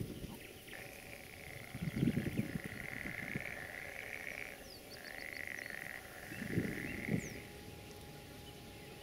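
Frogs croaking in long trilling calls of a second or more, one after another, with a couple of short high chirps and brief low rumbles in between.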